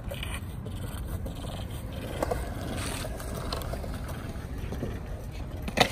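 Skateboard wheels rolling over concrete, a steady low rumble, with one sharp clack near the end.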